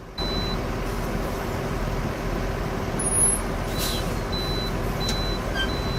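MAN logging truck's diesel engine running steadily while the truck reverses, with its reversing alarm beeping on and off. A brief high hiss of air comes about four seconds in.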